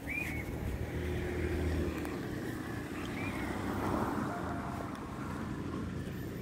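Low steady outdoor rumble with a few short high chirps, one at the start and one about three seconds in.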